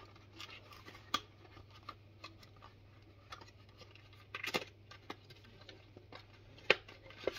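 Small black cardboard accessory box from a Samsung Galaxy S23 Ultra package being handled and pried open: light scrapes and rustles of card, with a few sharp clicks and taps, a cluster about four and a half seconds in and the loudest near the end.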